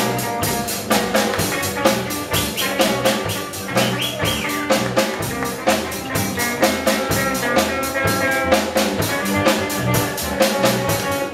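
Live amplified rock band playing: electric guitars over a drum kit keeping a fast, steady beat.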